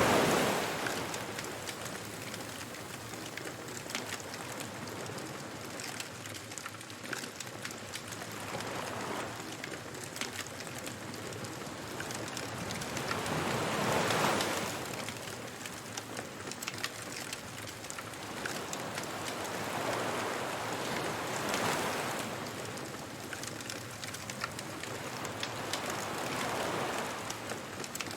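Surf washing onto a beach in slow swells every several seconds over a steady hiss, with small scattered crackles from a wood bonfire.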